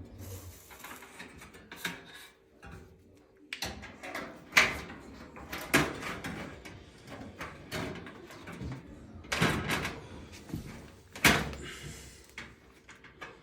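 Back panel of a Samsung gas range being handled and fitted into place: irregular clunks, scrapes and rattles, with the sharpest knocks about four and a half, six, nine and a half and eleven seconds in.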